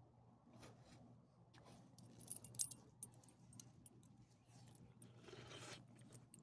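Brief faint metallic jingle of a dog's leash clip and collar hardware about two and a half seconds in, among scattered light clicks and a short rustle near the end, over near silence.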